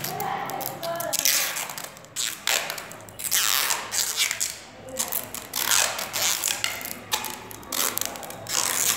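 Handling noise from hands working wires and small DC motors on a wooden board: a run of short rustling, scraping bursts, about one a second.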